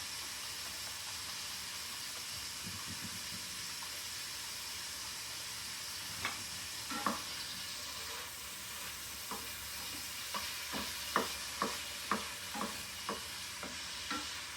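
Chicken pieces sizzling steadily in a hot frying pan. From about six seconds in come light clicks, roughly two a second, as the chicken is stirred in the pan.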